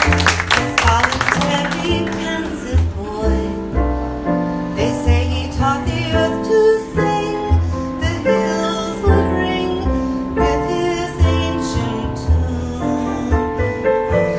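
Live jazz keyboard solo with bass accompaniment, the keyboard playing separately struck melodic notes over regularly placed bass notes. A short burst of applause dies away in the first two seconds.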